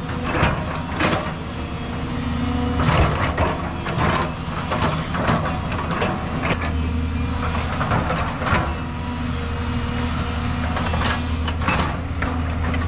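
Diesel engine of a hydraulic excavator running steadily under load, with irregular scrapes and clunks every second or two as its bucket digs and drags loose soil and rock, clearing landslide debris off the road.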